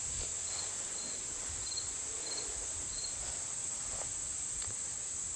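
Steady high-pitched chorus of insects such as crickets, with faint short chirps repeating a little under a second apart during the first three seconds.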